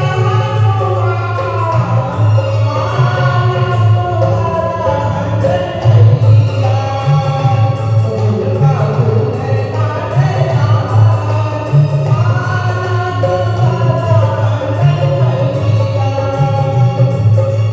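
Hindi devotional Hanuman bhajan, a Holi song, sung by voices in a group over a steady low accompaniment.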